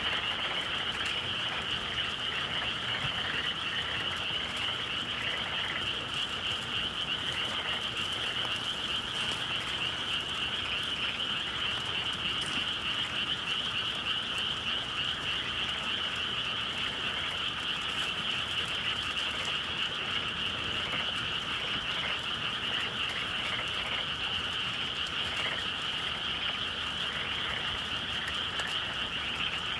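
Dense chorus of many frogs calling at once, a steady unbroken din that neither rises nor falls.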